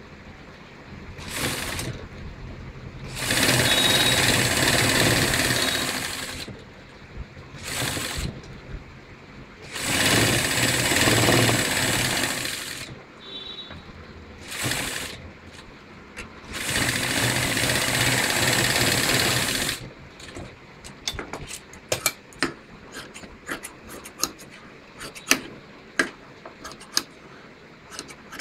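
Ralson straight-stitch sewing machine stitching a trial row of bobbin-thread embroidery in short runs of one to three seconds, starting and stopping about six times. About two-thirds of the way in the stitching stops and gives way to scattered sharp clicks and taps.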